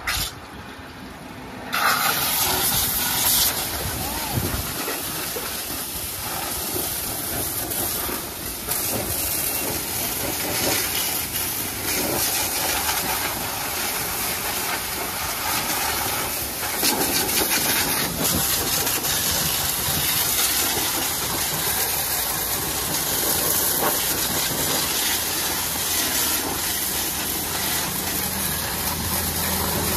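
Pressure washer's high-pressure water jet hissing steadily as it blasts caked mud off a tractor-mounted rotary tiller; the spray starts about two seconds in after a brief quieter moment.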